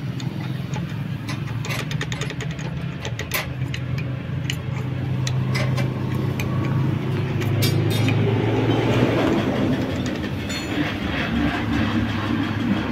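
A motor vehicle's engine runs with a steady low rumble that swells about eight seconds in, with scattered sharp clicks over it.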